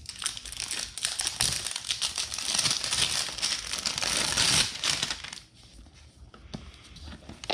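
The GoPro camera box's packaging crinkling and rustling as it is unwrapped by hand. The crinkling dies down about five seconds in, leaving a few soft handling clicks.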